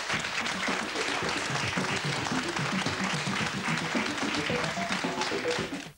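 Studio audience applauding, with music playing underneath. Both cut off abruptly near the end.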